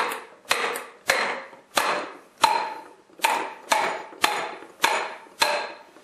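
A hand tapping repeatedly on top of a paint roller cage held upright, about ten sharp taps roughly every half-second to second, each with a short ringing decay. The taps jar the roller sleeve loose so it slides down the cage wires.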